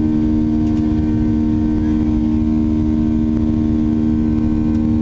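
Cabin noise of a Boeing 737-800 during takeoff: its CFM56-7B turbofan engines hold a steady drone, with two strong steady tones and a dense low rumble heard from inside the cabin.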